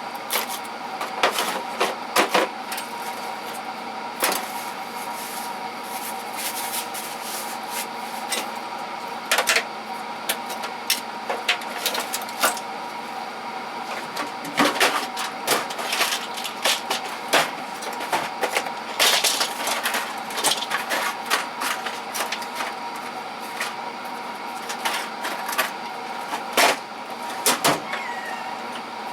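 Hand tools and metal parts clinking and clattering as they are handled and moved around in toolbox drawers: irregular clanks and clicks, some sharp and loud, over a steady hum.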